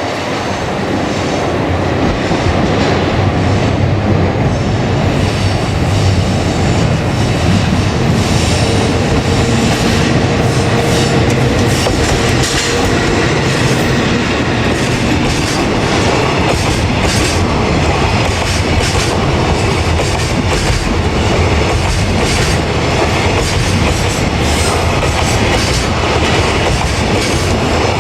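Train passing close by for a long stretch, its wheels clattering steadily over the rail joints, with a faint wheel squeal.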